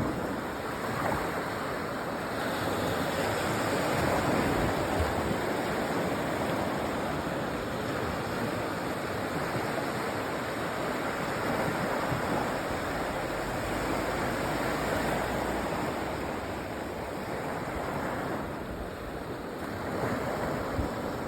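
Surf washing onto a sandy beach, a continuous wash of breaking waves that swells and eases, with some wind on the microphone.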